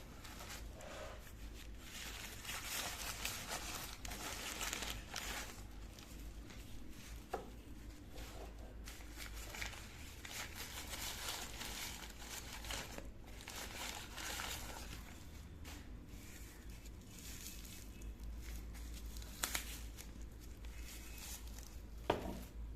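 Plastic packaging crinkling and rustling as it is handled and unwrapped, with a few sharp clicks.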